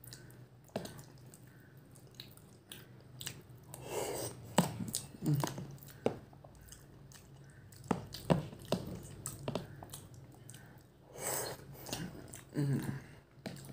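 Close-up chewing and mouth sounds of a person eating meatballs, with scattered sharp clicks of a metal spoon and fork against a plastic container.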